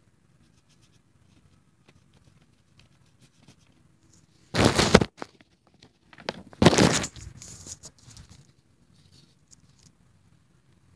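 Two loud bursts of rustling about two seconds apart, the second trailing off in softer rustling for about a second, between faint small ticks.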